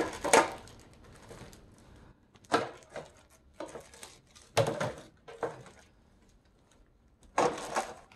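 Plastic bags and wrapping on clear plastic organizer trays crinkling and rustling as the parts are handled, in irregular short bursts.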